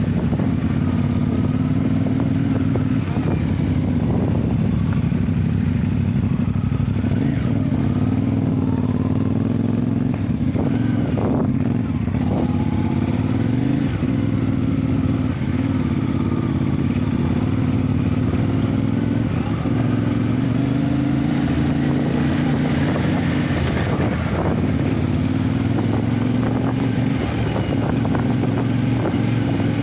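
Motorcycle engine running steadily under way, its pitch drifting gently up and down with the throttle.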